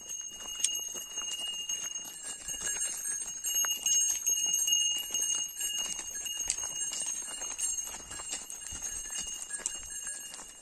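Livestock moving about close by: irregular hoof clicks and knocks, over a steady high-pitched tone.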